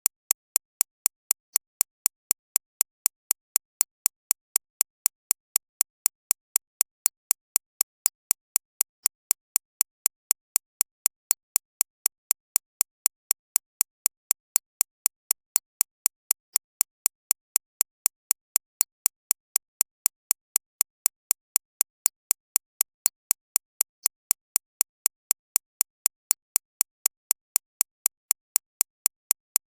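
Synthesized recreation of a shockwave therapy (ESWT) machine's pulses: sharp, identical clicks repeating evenly several times a second. Each click is bright and hissy, weighted toward the 6.5–13.5 kHz range to mask tinnitus.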